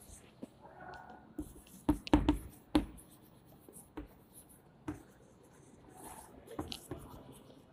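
Chalk writing on a chalkboard: scratchy strokes broken by sharp taps as the chalk strikes the board, with a quick cluster of taps about two seconds in.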